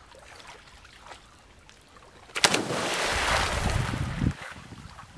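Splashing in a river: a sudden loud splash about halfway through, then about two seconds of churning, thrashing water that stops abruptly.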